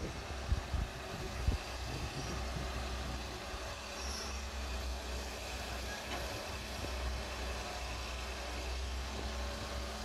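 Diesel engines of CAT 320C hydraulic excavators running steadily under digging load, a low continuous drone. A few short knocks sound in the first second and a half.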